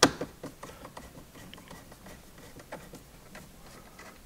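Small clicks and light ticks of hands removing interior trim from a Mk3 Toyota Supra's center console: a sharp click right at the start, then scattered, irregular ticks.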